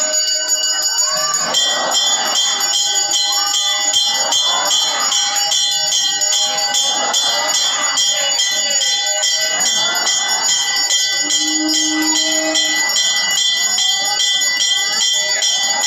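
Temple bells ringing rapidly and without pause during the lamp-waving offering (aarti), with voices or devotional music beneath and a short held low note about eleven seconds in.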